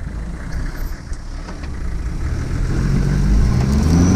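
Toyota Land Cruiser 70-series troop carrier's engine running low, then revving up with a rising pitch from about halfway through as the vehicle pulls away through soft sand, growing louder near the end.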